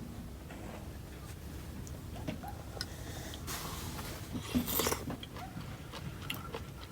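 Chewing and biting food, with small scattered clicks and a brief rustling noise about three and a half seconds in.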